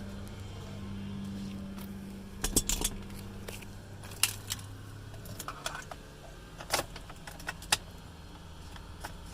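Several sharp metallic clicks and jingles, the loudest cluster about two and a half seconds in and a few single clicks after, over a steady low hum that fades out a little past halfway.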